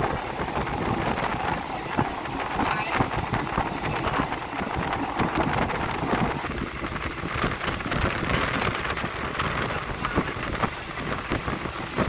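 Rumble and rattling of a ride in a moving vehicle, with wind buffeting the microphone; the noise changes character about six and a half seconds in.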